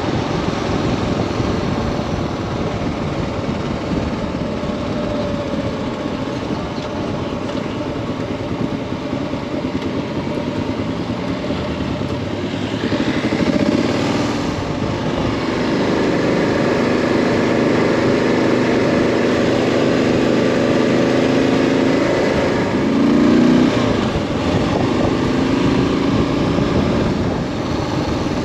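Motorcycle engine running steadily, revving up about halfway through and briefly again near the end.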